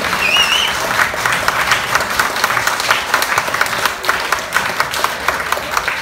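Audience applauding, a dense run of many claps, with a brief wavering whistle from someone near the start.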